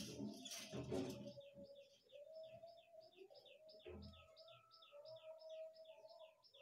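A bird chirping faintly and fast, a steady train of short falling chirps about five a second, over a faint steady tone. A few louder noises come in the first second or so and a thump about four seconds in.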